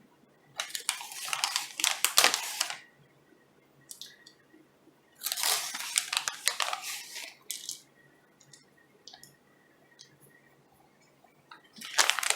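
Plastic packaging crinkling and rustling in two bursts of a couple of seconds each, with a few light clicks between, as it is handled and opened.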